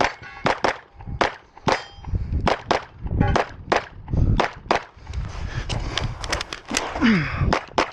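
A string of 9mm Glock pistol shots fired at a fast, uneven pace, often in quick pairs, with a short lull in the middle. Some shots are followed by a ringing tone, like steel targets being hit.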